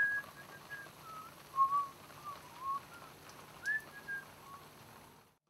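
A person whistling a slow, wandering tune of short sliding notes over a faint low hum; the whistling cuts off abruptly near the end.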